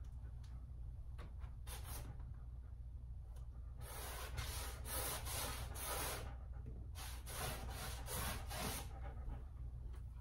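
Paintbrush scrubbing paint onto a canvas: one brief stroke, then two runs of quick back-and-forth strokes near the middle and toward the end.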